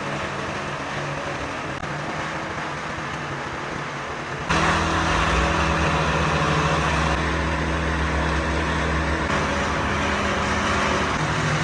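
Concrete truck's diesel engine running steadily, suddenly louder from about four and a half seconds in.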